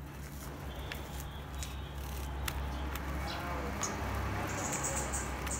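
Sunbirds moving about a wire cage: scattered light clicks and taps over a steady low hum, with a quick run of short high-pitched sounds near the end.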